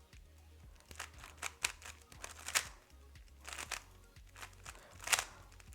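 A 3x3 speed cube being turned fast by hand: quick bursts of plastic clicking and clacking as the layers are turned, with short pauses between bursts.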